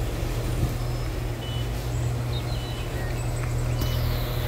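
Northern Ireland Railways Class 4000 diesel multiple unit standing with its underfloor diesel engines idling: a steady low hum. Birds chirp briefly over it, and a sudden hiss cuts in near the end and fades.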